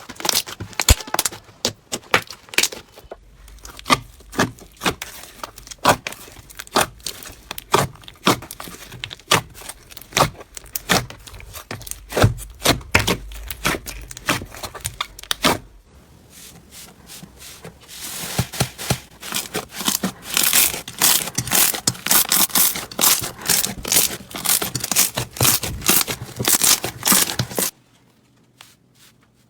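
Slime being squished and stretched: a dense run of crackling clicks and pops, changing character a few times as one clip gives way to the next.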